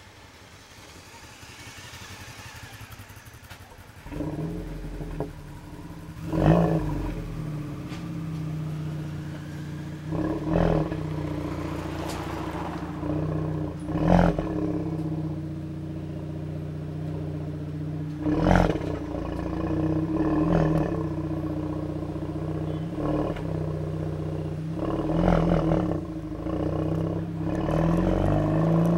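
Another motorcycle passes, then about four seconds in a motorcycle engine close by starts and idles, given several short revs of the throttle, and pulls away near the end.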